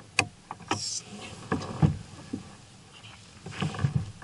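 A string of irregular light knocks and clunks of gear being handled in a kayak, with a brief rustle about a second in.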